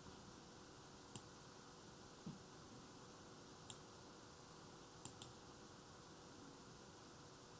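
Four faint, sharp clicks at a computer, one about a second in, one near the middle and a quick pair a little later, with a soft low thump just after two seconds, over steady low hiss.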